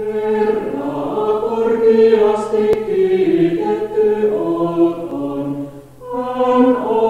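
Mixed vocal ensemble of men and women singing a Finnish hymn in several parts, in long held notes, with a brief breath between phrases just before the end. A faint steady hum of an old cassette recording lies underneath.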